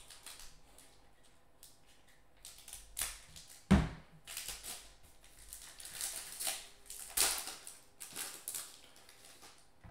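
Foil wrapper of a trading-card pack crinkling in the hands as it is handled, in short irregular rustles, with one dull knock a little under four seconds in.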